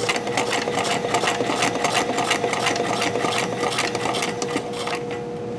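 White all-metal domestic mechanical sewing machine stitching through two layers of vinyl: a quiet steady motor hum with a fast, regular clatter of the needle and feed, easing off near the end.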